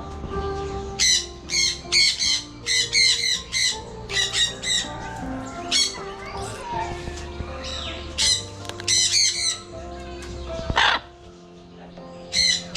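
Parrots squawking in quick clusters of short calls, with one longer call near the end, over background music.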